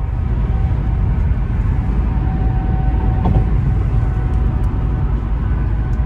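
Steady low road and engine rumble inside the cabin of a 1992 Nissan Gloria Brougham cruising at highway speed, with a faint steady whine over it.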